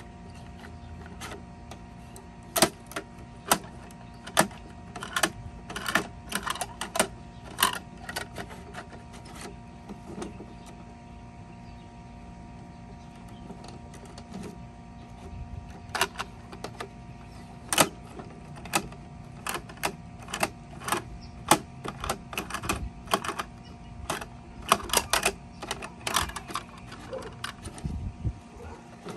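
Toy garbage trucks and plastic trash bins being worked by hand: irregular plastic clicks, knocks and clatter in two busy spells, over a steady hum.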